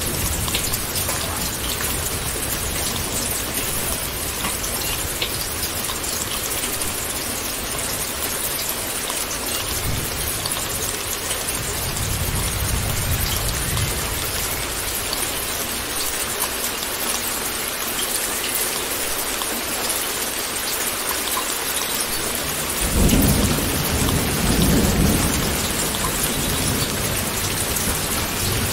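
Steady heavy rain with distant thunder. Low rumbles roll in twice midway, and near the end a louder rumble comes in two swells.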